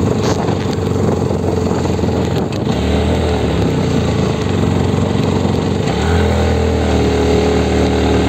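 Bajaj Pulsar NS 125's single-cylinder engine running under way, with the engine note strengthening in two steps, about three and six seconds in, as the bike picks up speed again.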